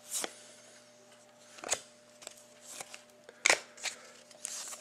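Trading cards and their pack being handled: a handful of short, sharp rustles and clicks, the loudest about a third and about two-thirds of the way through.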